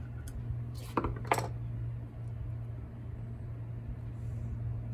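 Two short clicks about a second in as the plastic fuel cap of a cut-off saw is unscrewed to check the fuel, over a steady low hum.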